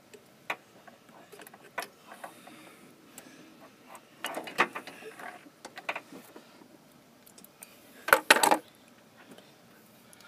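Metal hand tools clinking and clattering: scattered sharp clicks, a busier patch of knocks about four seconds in, and a loud brief metallic clatter about eight seconds in.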